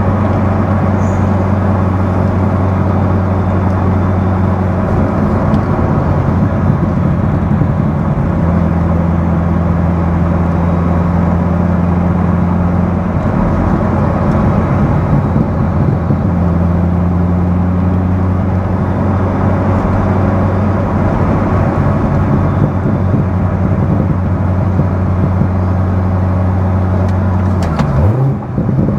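Corvette Z06's LS7 7.0-litre V8 heard from inside the cabin, droning steadily at a light cruise. Near the end its note drops briefly, then the engine settles at a higher pitch, as in a downshift.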